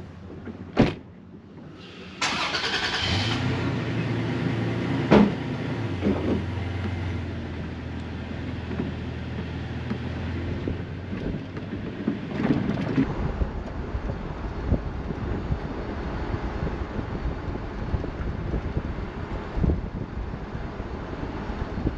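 A sharp thump about a second in. Then a Toyota Tacoma pickup's engine starts about two seconds in and idles steadily, heard from the truck bed. From about eleven seconds the truck is driving and wind and road noise take over, with a few knocks.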